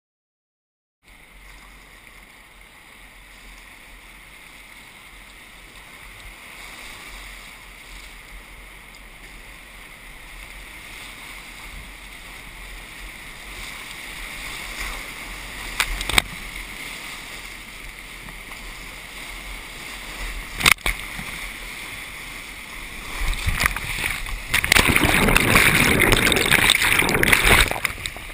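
Whitewater rapids rushing around a kayak, starting about a second in and slowly growing louder, with two sharp knocks in the middle. Near the end, loud splashing as waves break over the boat and camera.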